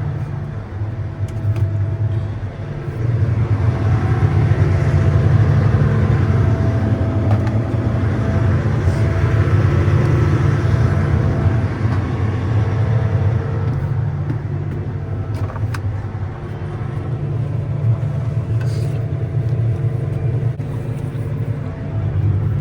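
Motor vehicle running steadily, a low engine and road rumble that swells a little for several seconds in the middle, with a few faint clicks.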